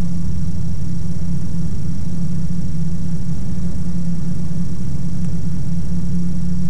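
Steady low drone of the Ikarus C42 microlight's engine and propeller, heard through the cockpit intercom, holding an even pitch and level throughout.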